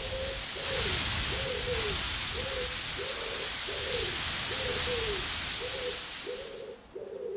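High-pressure air hissing out of a Hatsan AT44-10 PCP air rifle's cylinder through the discharging cap's bleed hole, the cap's screw holding the valve open to empty the cylinder; the hiss fades and stops near the end as the cylinder runs empty. A low call repeats behind it about every two-thirds of a second.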